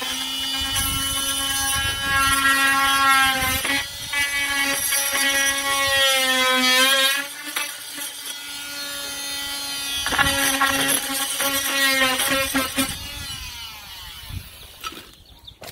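Oscillating multi-tool cutting into wood siding, a buzzing whine whose pitch sags under load and recovers. It runs in two cuts with a short break between, and winds down near the end.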